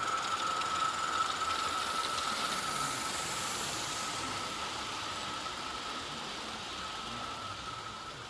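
A live steam model locomotive hissing steadily, with a steady high tone through the hiss. The sound slowly grows fainter.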